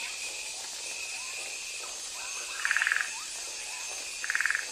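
Two short rattling animal calls, each under half a second of rapid pulses, about a second and a half apart. Behind them is a steady high insect buzz with faint small chirps.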